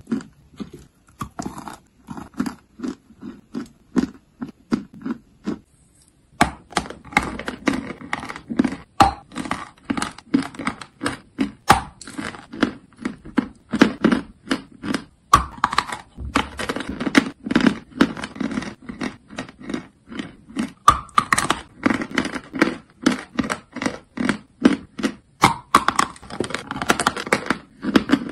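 Close-miked chewing of hard lumps of chalk: crisp crunches at about two to three bites a second. After a short pause about six seconds in, the crunching is louder and denser.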